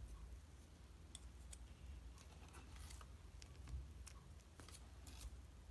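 Faint, scattered clicks and crackles of a banana-scented shaving-foam slime being handled, at an irregular pace, over a low steady hum.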